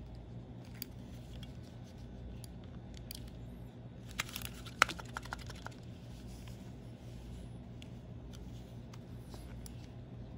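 Small plastic clicks and taps from a wireless mouse body being handled with its battery cover off, scattered throughout, with a quick cluster of sharper clicks about four to five seconds in.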